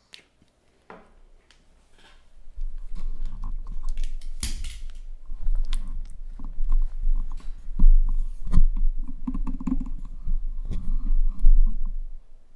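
Crinkling, rustling and knocking of packaging being handled close to the microphone, as a box of trading cards is opened. It starts about two and a half seconds in after a few clicks and goes on as irregular crackles and thumps.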